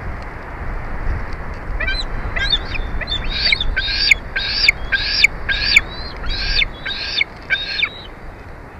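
Bald eagle calling: a series of about a dozen short, high chirping notes at roughly two a second, over a steady wind rumble.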